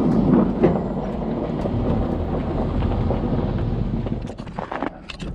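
Heavy equipment diesel engine running loud and steady. It drops off about four seconds in, and a few sharp clicks follow.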